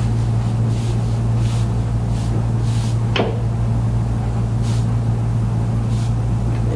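A steady low hum with faint soft rustles now and then, and one short squeak falling in pitch about three seconds in.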